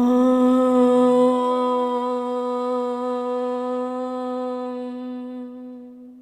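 A woman chanting one long 'Om' on a single steady note, growing gradually softer until it stops at the very end.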